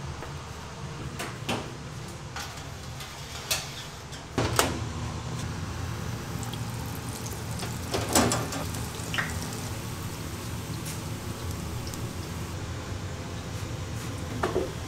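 Donut dough frying in a deep fryer, a steady sizzle of oil over a low hum, broken by several sharp knocks and clacks. The loudest come about four and a half and eight seconds in.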